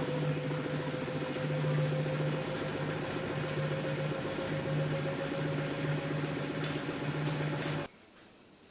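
LG F10B8QD1 direct-drive washing machine running, with a steady motor whine over a low hum that pulses on and off. It cuts off abruptly about eight seconds in.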